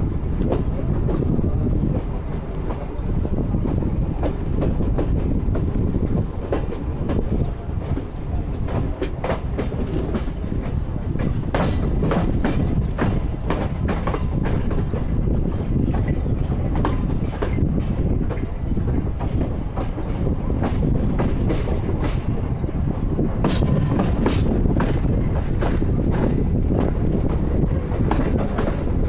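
A moving passenger train's coach wheels clattering over rail joints, with a continuous rumble and wind rush, heard from beside the coach. Runs of sharper, brighter clacks come around the middle and again near the end.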